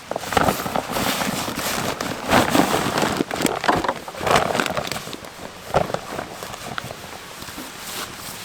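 Campfire of oak firewood crackling, with irregular sharp pops and short hissing bursts.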